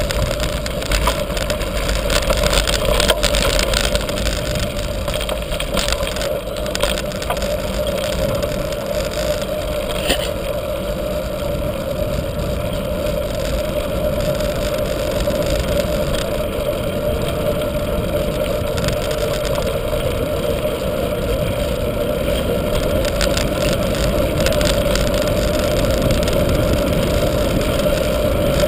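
Wind rushing over an action camera's microphone and the rumble of mountain-bike tyres rolling downhill, steady and loud. A few knocks from bumps in the first ten seconds on rough dirt, then a smoother rush once the tyres are on asphalt.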